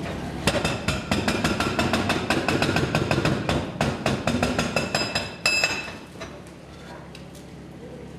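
Hydraulic breaker on a Kubota mini excavator hammering through the last rock of a tunnel face: a fast, even run of metallic strikes, several a second, that starts about half a second in and stops about 6 seconds in, over the machine's steady low engine hum.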